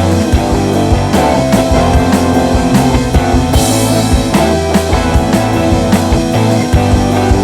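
Rock band music: drum kit keeping a steady beat under sustained bass and guitar notes, with a brief burst of bright hiss a little past the middle.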